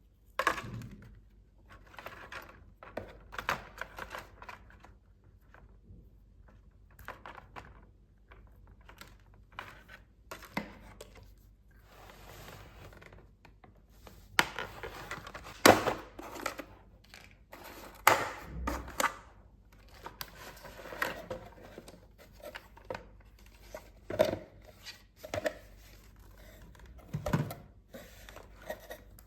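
Toy packaging and small plastic pieces being handled: irregular sharp clicks and taps mixed with short bursts of crinkling and tearing, the loudest snaps about halfway through.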